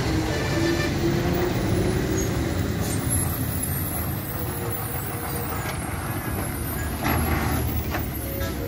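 Diesel engines of heavily loaded Ashok Leyland and Tata lorries running under load as they take a hairpin bend, with a short hiss about seven seconds in.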